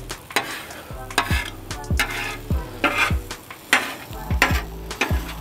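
Steel spatula scraping and tapping on the hot steel top of a Blackstone griddle, in about a dozen quick strokes, roughly two a second, as it pushes scrambled eggs in toward the centre. Under the strokes the eggs sizzle steadily in bacon grease.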